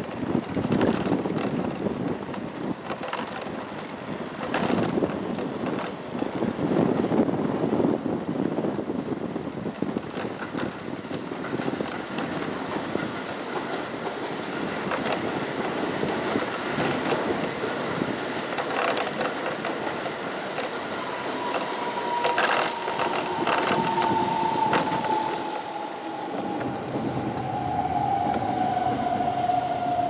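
Keihan electric train running on an elevated line: a steady rumble of wheels and running gear. From about two-thirds of the way through, a single motor whine slides steadily lower in pitch as the train slows.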